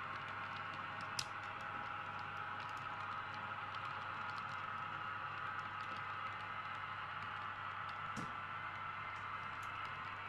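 H0-scale model freight wagons rolling slowly along the track: a steady running hum with light, irregular clicking of wheels over rail joints, and two sharper clicks about a second in and near the end.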